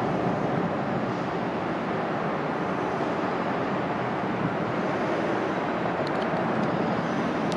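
Airbus A330-300 with Pratt & Whitney PW4168A turbofans climbing away after takeoff: a steady, even jet rumble from the departing airliner.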